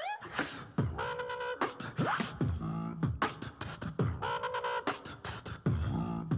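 Vocal beatbox backing track: a steady beat of deep kick sounds and sharp clicks, with hummed pitched notes held between them.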